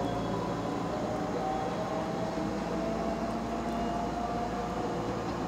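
Limited-express electric train moving slowly at the platform, its electric drive giving a steady whine whose tones drift slowly in pitch over a low hum.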